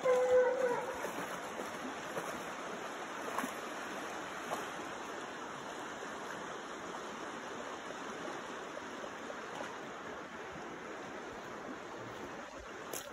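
Steady rushing of river water, with a short pitched call over the first second.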